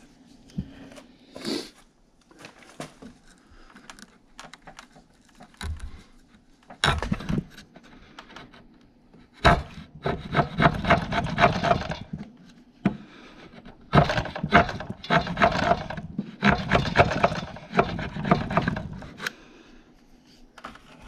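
A hand tool shaving and scraping a rough-sawn wooden timber in three spells of rapid strokes, each about two seconds long, in the second half. A few sharp knocks on the wood come before them.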